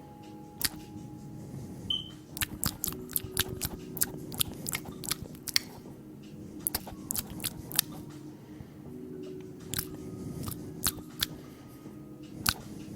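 Rapid, irregular sharp clicks and snaps, several a second, over a low steady drone.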